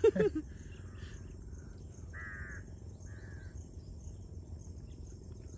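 Two crow caws about two seconds in, the first the louder, over a low steady background noise.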